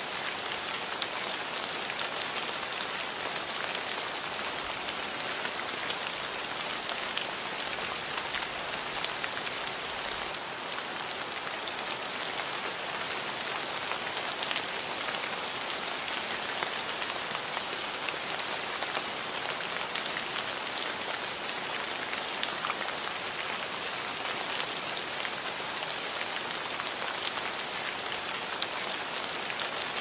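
Steady rain falling on a surface, an even hiss dotted with many separate drop ticks. It eases slightly for a moment about ten seconds in.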